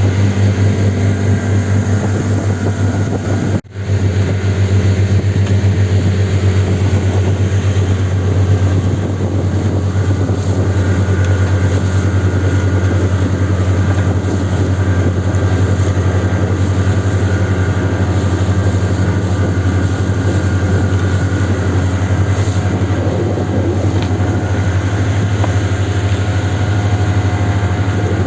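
Vehicle engine running steadily at a constant speed, a low drone with a brief dropout about four seconds in.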